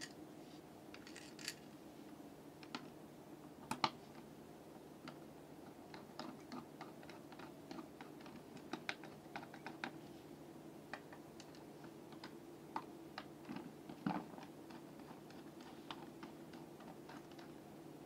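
Irregular small clicks and taps of a screwdriver working the fixing screws of a plastic wall switch plate as it is screwed onto its mounting box, over a faint steady hum.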